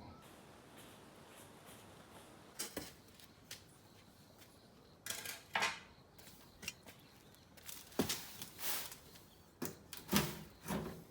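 Irregular knocks and scrapes, coming in four short clusters a few seconds apart.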